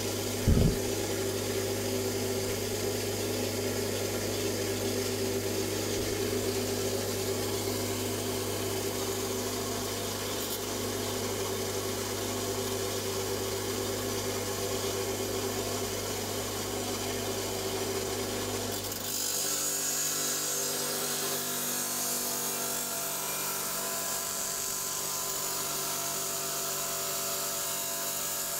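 Electric stone saw running steadily as it cuts through an agate nodule. About two-thirds of the way through, the low hum drops away and the higher hiss of the cut grows.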